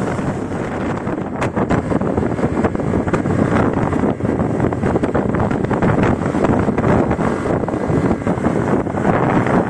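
Wind rushing and buffeting over the microphone of a moving motor scooter, a steady gusty rush with the ride's rumble underneath.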